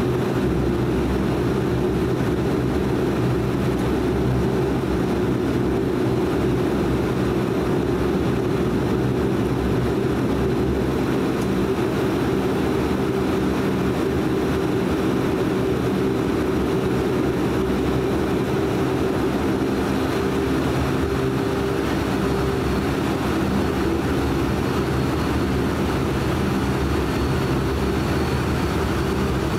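Cabin noise of a De Havilland Canada Dash 8-400's twin Pratt & Whitney Canada PW150A turboprops running at taxi power: a steady propeller drone with several fixed hum tones over a broad rush of air.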